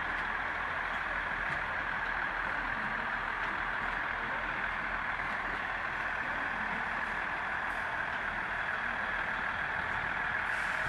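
Class 159 diesel multiple unit running past, its underfloor Cummins diesel engines giving a steady drone.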